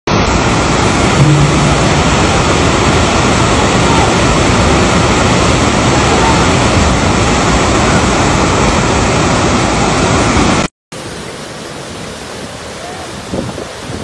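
Fast muddy floodwater rushing, a loud steady wash of water noise. About eleven seconds in it cuts out briefly and gives way to a quieter rush of floodwater with faint voices.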